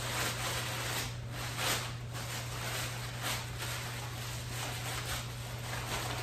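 Plastic bags rustling and crinkling in the hands: a black garbage bag and its silver zip-top toilet-liner bag being handled and pulled apart. A low steady hum runs underneath.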